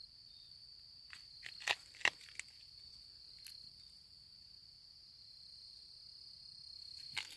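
Steady high-pitched insect chorus, one thin continuous tone, with a few crunching footsteps on the trail about one to two seconds in and once more near the end.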